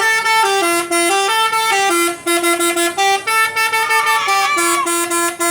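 Telolet bus horn, a multi-tone horn, playing a loud, quick melody of short stepped notes, with a brief break about two seconds in.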